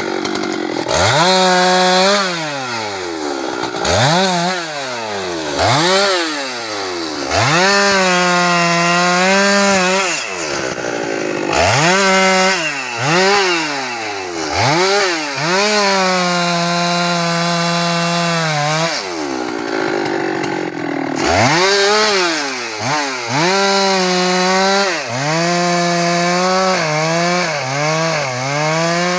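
Husqvarna 390XP two-stroke chainsaw revved again and again to full throttle, held high for a second or three each time, then dropping back, with a quick run of short revs near the end; the held stretches are the saw cutting through teak wood.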